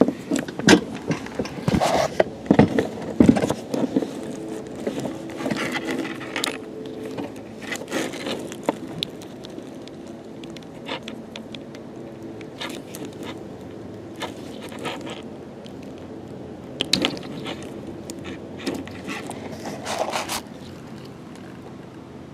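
Plastic wiring harness and its inline fuse holder being handled and opened, a string of clicks, scrapes and rattles, busiest in the first eight seconds and again near the end.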